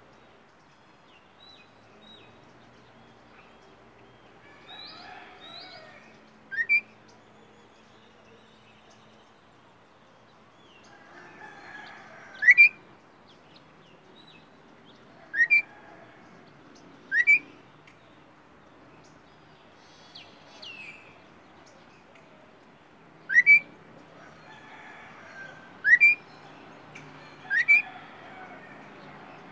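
Caged songbird singing: about seven loud, short, upward-sweeping whistled notes a few seconds apart, with softer warbled phrases in between.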